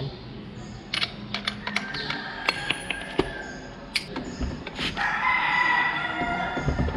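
Scattered metallic clinks and taps from a socket wrench being fitted to a scooter's swing-arm bolt, then a rooster crowing in the background from about five seconds in, one long call of about two seconds.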